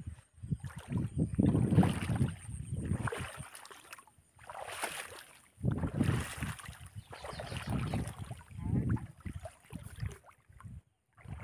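Legs wading through shallow floodwater among grass, sloshing and splashing in irregular surges about a second apart.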